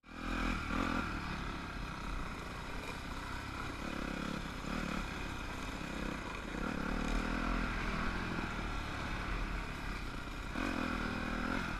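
Dirt bike engine running under the rider, revving up and down in repeated throttle swells along the trail.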